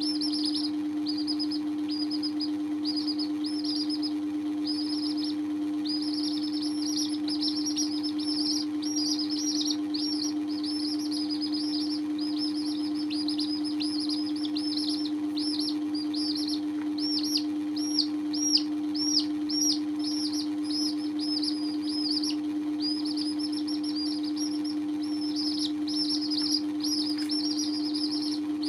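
Young domestic chicks peeping continuously in quick, high-pitched calls, with a few louder peeps a little past halfway. A steady low hum runs underneath.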